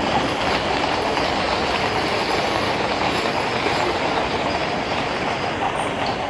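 Hooves of many horses clattering on the road at a trot, with the wheels of horse-drawn field guns rumbling along, a dense continuous clatter.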